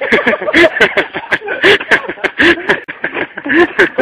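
Loud, excited young men's voices shouting and laughing over one another, with sharp clicks scattered throughout.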